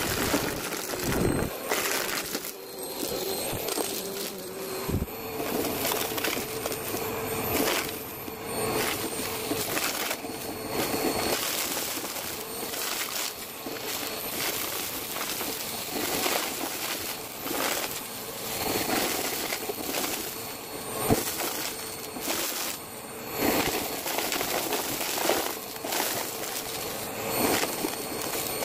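Bagless upright vacuum cleaner running over a rug and sucking up small hard debris (plastic bits, beads, buttons, puzzle pieces), which crackle and rattle as they are pulled up into the clear dust cup. A steady motor tone sits under many quick irregular clicks, played back at double speed.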